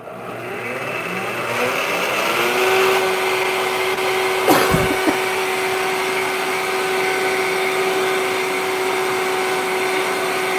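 Countertop blender motor starting up and rising in pitch over the first two seconds or so as it is dialled up, then running at a steady high speed, blending a peppercorn cream sauce. A single sharp knock comes about four and a half seconds in.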